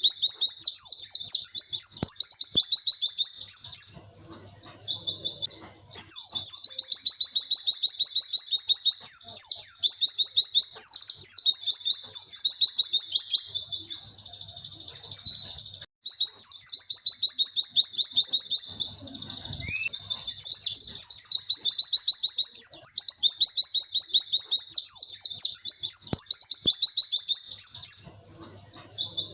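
White-eye (pleci) singing a long, rapid, high twittering song in runs of about eight to twelve seconds, broken by short pauses.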